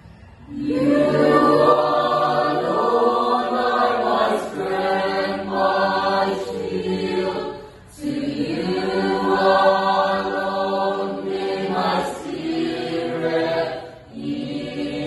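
Church choir singing long held phrases, pausing briefly about 8 and 14 seconds in.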